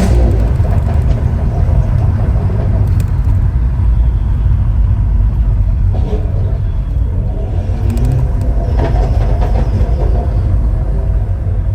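Stage 2 BMW 540i with a custom exhaust: a deep, steady rumble of the engine and exhaust on the move, with no hard revving.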